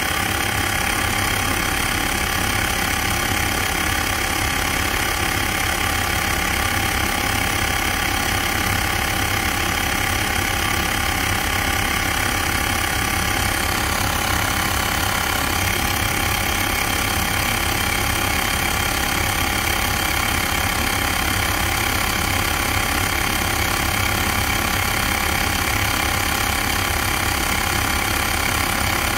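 Xiaomi Mi Portable Electric Air Pump's compressor running steadily as it inflates a car tyre, pressure rising toward its 2.0 bar set point.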